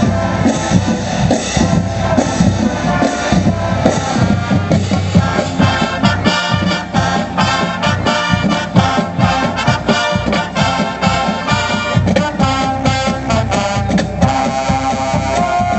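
Marching band playing: brass over drums, with a run of short, clipped brass chords in the second half.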